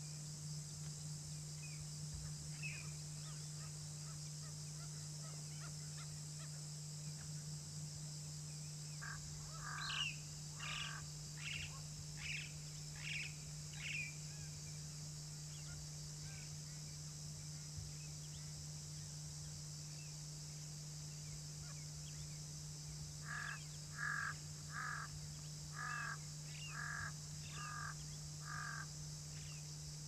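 A bird calling in two series of evenly repeated notes, about six calls starting ten seconds in and about seven more starting after twenty-three seconds, over a steady high insect drone and a low steady hum.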